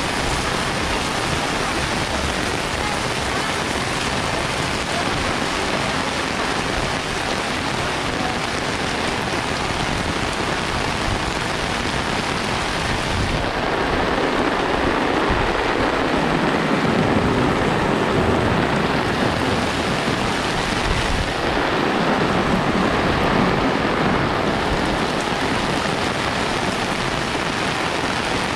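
Super heavy rain pouring steadily, a dense hiss. About halfway through it turns louder and duller for several seconds, and it does so again a little later.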